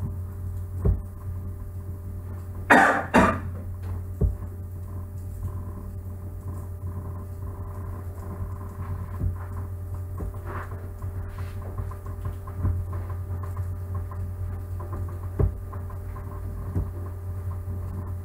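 Steady low electrical hum of the recording setup, broken by a short double cough about three seconds in and a few faint clicks.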